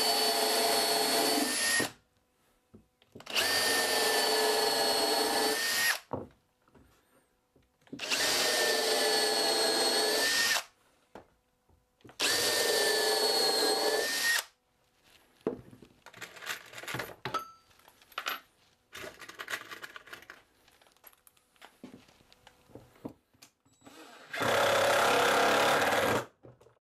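Cordless drill pre-drilling pilot holes through plywood into the divider blocks behind it, running at a steady whine in four short runs of about two and a half seconds each. Light clicks and rattles of handling follow, and then one more run near the end.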